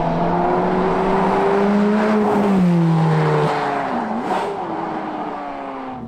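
Ferrari F430's 4.3-litre V8 engine pulling under acceleration, its note rising steadily for about two seconds, then falling in pitch as the throttle comes off and the revs drop.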